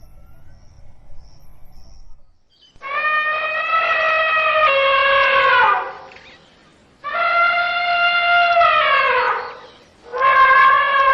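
Elephant trumpeting: three long, loud trumpet calls, each held steady for a few seconds and then falling in pitch at the end. The first comes after about two seconds of faint low noise.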